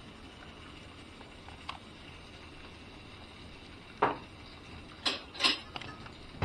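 A dog nosing a treat-dispensing ball toy to shake kibble out of it: one knock about four seconds in, then a quick run of three or four clattering knocks a second later.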